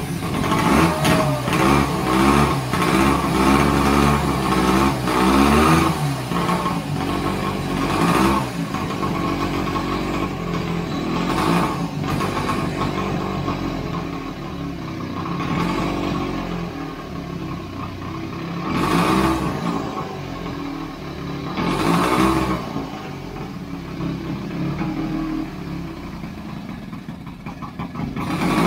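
A 1929 Scott Flying Squirrel's two-stroke twin engine running just after its first start following restoration. It is revved up and down for the first few seconds, then keeps running with several short throttle blips.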